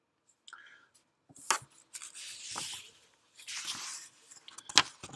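Rustling and a few sharp clicks close to the microphone: handling noise during a pause in speech.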